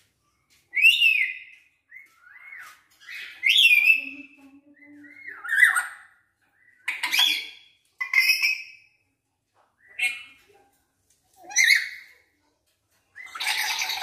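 A caged lory gives a string of loud calls, about eight in all, each a fraction of a second long. Whistled notes that slur up and down alternate with harsh squawks, and a long raspy squawk comes near the end. These are the calls of a lory learning to make sounds.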